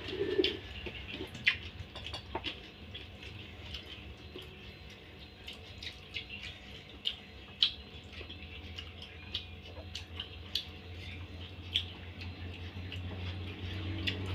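Eating at a meal: scattered small clicks and clinks of spoons and hands on plates, and crunching of crispy fried anchovies. A low steady hum grows louder toward the end.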